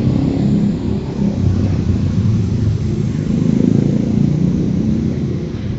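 Steady low rumble of slow-moving car traffic on a wet street, cars idling and creeping in a jam.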